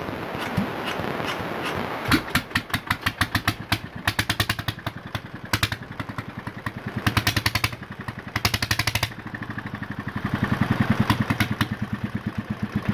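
Petter diesel engine running, a rapid, even knocking beat that speeds up and slows down a few times.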